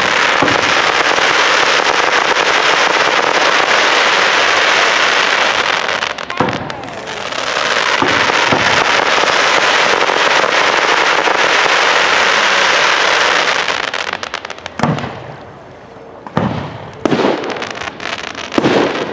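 Fireworks: a long, dense crackle from fan-shaped spark effects, breaking off briefly about six seconds in and then resuming. Near the end come three separate sharp bangs.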